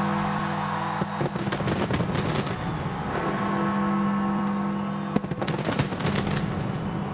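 Fireworks going off, with clusters of sharp bangs and crackles about a second in and again about five seconds in, over music with long held notes.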